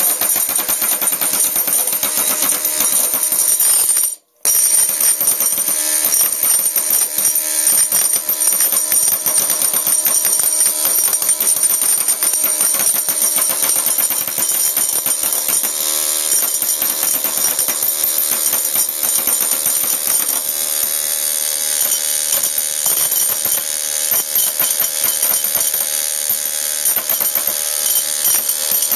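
Pneumatic carving chisel hammering rapidly into a wooden block, a continuous fast chatter with a hiss of air, cutting out for a split second about four seconds in.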